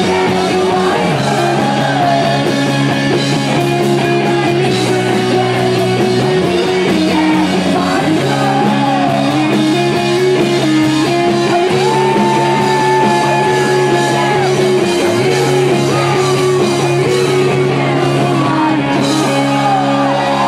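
Live rock band playing loudly: bass guitar, drums and guitar under a woman singing.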